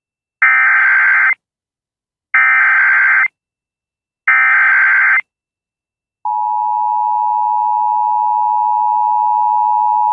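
Emergency Alert System tornado warning: three warbling SAME data header bursts, each about a second long and a second apart, then the steady two-tone EAS attention signal starting about six seconds in.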